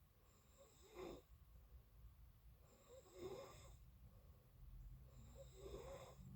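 A person snoring faintly in sleep, three snores about two and a half seconds apart.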